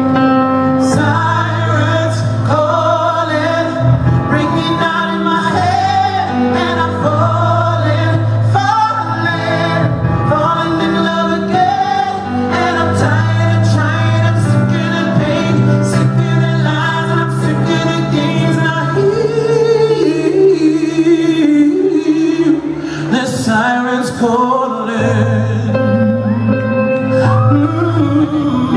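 A live pop band plays while a male lead singer sings into a microphone, backed by keyboard and electric guitar. The sung melody bends and holds notes over a steady bass line.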